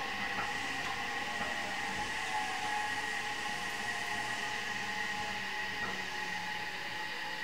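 Running sound inside an Odakyu 8000 series electric train, a renewed motor car with fully enclosed traction motors, at moderate speed: a steady hum with a few faint clicks from rail joints.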